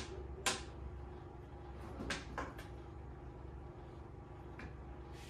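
A few sharp light clicks and knocks from the laser engraver's metal frame being handled and moved on the table: two near the start and two more about two seconds in, over a faint low hum.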